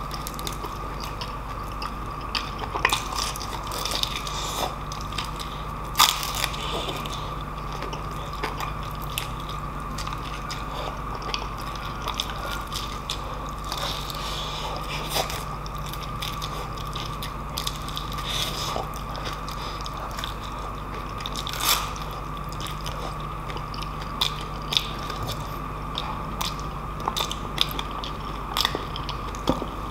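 Close-up chewing and crunching of crispy deep-fried pork knuckle, with many sharp crackles as the crust and meat are bitten, and two louder crunches about six seconds in and about twenty-two seconds in. A steady hum runs underneath.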